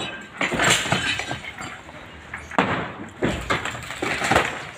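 House demolition: irregular sharp knocks and clattering breaks of material being struck and broken apart.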